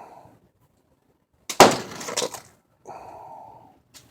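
A single sledgehammer blow about a second and a half in, with the struck material cracking and breaking apart just after it; a softer rattle of debris follows about a second later.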